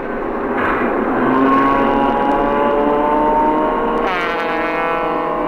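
A motor engine running and revving: its pitch climbs slowly, then about four seconds in it rises sharply and falls back.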